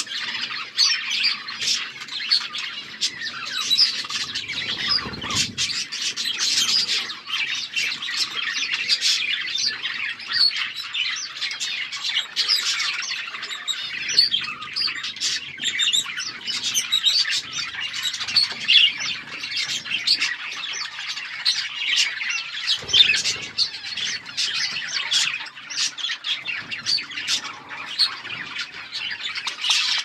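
A flock of budgerigars chattering continuously, many overlapping chirps and warbles at once.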